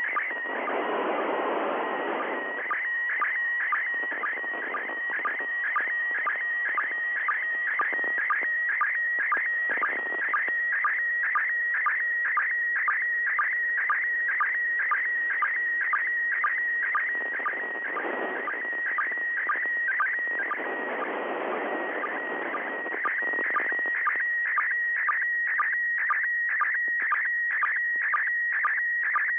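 Slow-scan television (SSTV) image signal from the International Space Station, heard as FM audio from an Icom IC-9700 receiver on 145.800 MHz. It is a steady high tone broken by a short regular tick about twice a second. Patches of receiver hiss rise under it near the start and again around the middle.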